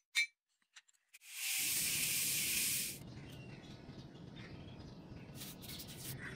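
A last hammer blow rings on the hot leaf-spring steel at the anvil. About a second later comes roughly a second and a half of loud steam hiss as the hot blade is quenched in water, and a quieter hiss with a low rumble carries on after it.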